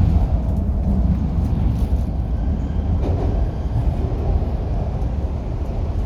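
MTR Kwun Tong Line Q-Train running between stations, heard inside the car as a steady low rumble that eases slightly about three and a half seconds in.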